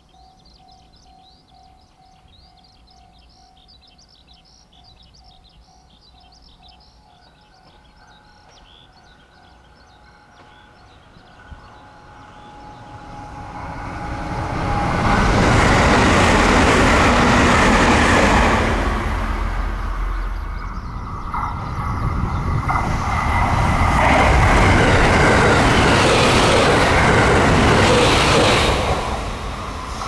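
Electric multiple-unit train passing close by: its rumble builds from about twelve seconds in to a loud pass, dips briefly, swells again and falls away near the end. Faint chirping, likely birds, is heard in the quiet opening stretch.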